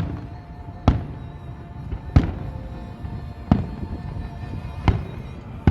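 Fireworks exploding, five or six sharp booms about a second and a half apart, each with a short trailing rumble, over patriotic music playing in the background.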